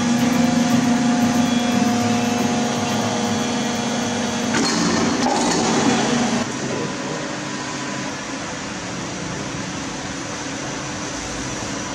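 Steady workshop machinery noise: a low hum under a rushing, blower-like roar, louder and rougher for a couple of seconds mid-way, then settling to a quieter steady rush about six and a half seconds in.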